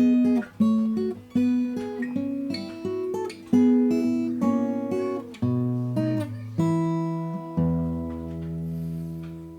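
Yamaha FG-720 acoustic guitar (spruce top, mahogany back and sides) being played: a quick run of plucked notes and chords, then a low chord about eight seconds in that is left to ring and slowly fade.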